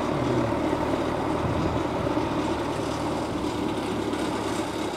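Steady drone and rumble of an approaching train, mixed with wind on the microphone.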